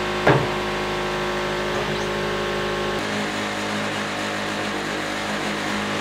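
Yanmar diesel engine of a Wood-Mizer sawmill running steadily, with one sharp knock near the start; its note shifts about halfway through.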